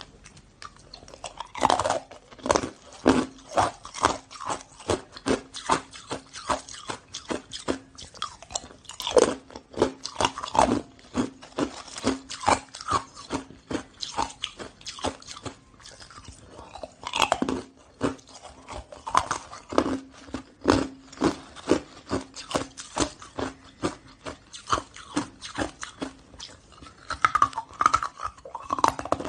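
Hard chunks of frozen ice crunched and chewed between the teeth: a rapid run of sharp crunches, about three a second, starting about a second and a half in, with a faint steady hum underneath.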